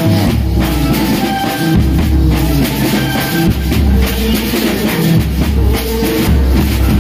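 Music with a heavy drum beat and deep, pulsing bass.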